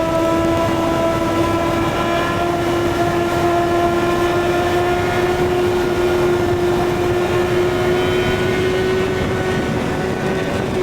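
Kawasaki ZX-6R inline-four engine holding steady high revs while riding, with its pitch creeping slowly upward, over a continuous rush of wind noise.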